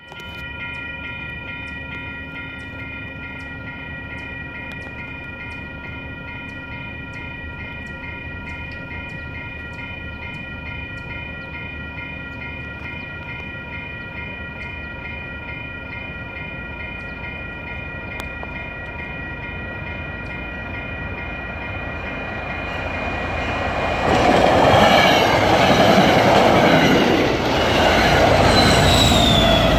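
Railroad grade-crossing warning bell ringing steadily. Then, from about twenty-two seconds in, an MBTA commuter rail train approaches, and from about twenty-four seconds it passes the crossing loudly with a rush of wheel and rail noise.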